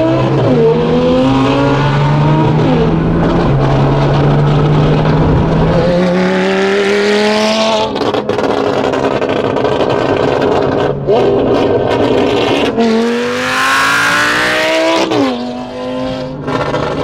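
Lamborghini Gallardo Super Trofeo Stradale's V10 on a straight exhaust, loud as it accelerates hard through the gears: the pitch climbs, then drops at each upshift, several times over, with a steadier stretch in the middle.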